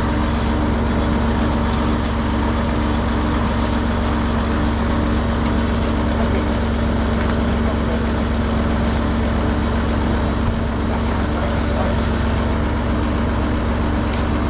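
A motor vehicle's engine running steadily at a constant speed: an even low rumble carrying a steady hum.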